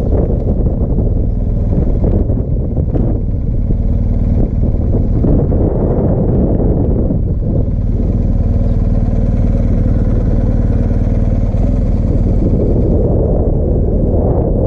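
BMW R 1250 GS Adventure's boxer-twin engine running steadily under way, heard from the bike itself.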